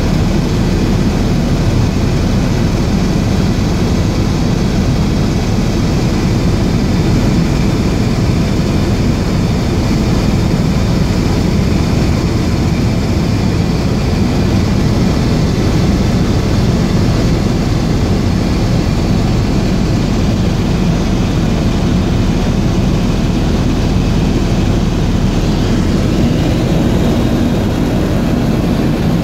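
Helicopter running steadily, a continuous loud rotor and engine noise with a faint steady whine above it and no change in pitch or level.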